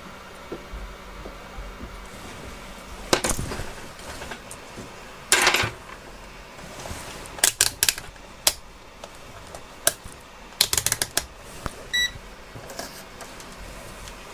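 Small tools clicking and tapping against a phone board and workbench during soldering work, in scattered bursts, with one short electronic beep near the end.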